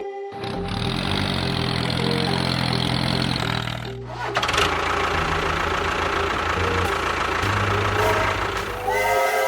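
An engine running steadily, in edited stretches that break off and restart about half a second and about four seconds in.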